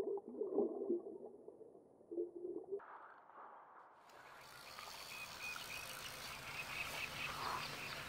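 Muffled, irregular water sounds picked up with the camera under the lake surface. About four seconds in, after a cut, faint lakeside ambience with small repeated animal calls.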